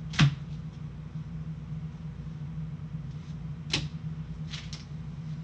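Two sharp plastic clicks, about three and a half seconds apart, as trading cards in hard plastic holders are handled and set down on a table, with a few fainter ticks near the end. A steady low hum runs underneath.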